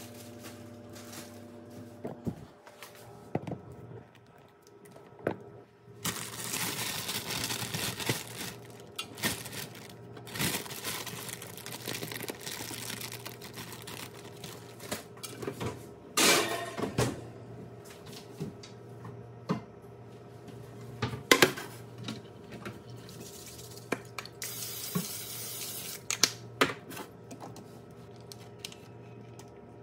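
Kitchen prep sounds: pans and bakeware clattering and knocking as they are handled and set down, with several stretches of hiss like running water or crinkling plastic, over a steady low hum. The loudest clatter comes about halfway through.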